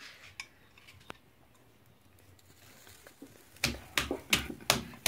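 Metal fork knocking against a glass bowl, sharp clicks about three times a second, as beaten egg is poured from the bowl onto the comal. Fairly quiet for the first three seconds or so, with only a couple of faint clicks before the knocking starts.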